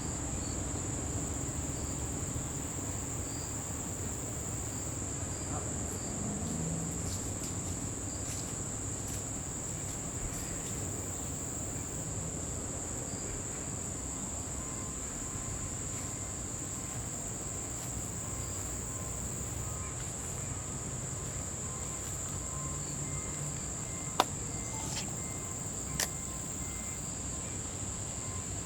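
Crickets trilling in one steady, continuous high-pitched band, over a low background rumble. Two sharp clicks come near the end.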